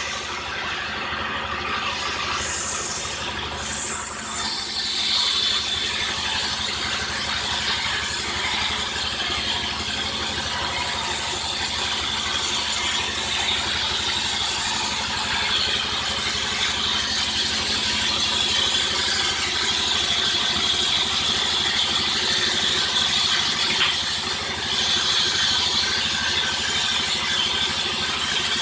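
Sawmill machinery running steadily, with a high hissing whine over a low rumble; it grows louder about four seconds in.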